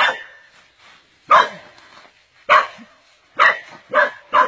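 A dog barking: five barks, coming closer together near the end.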